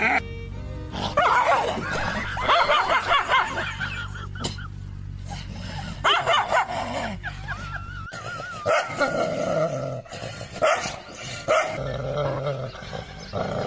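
A dog barking and whining in several short bursts, over background music.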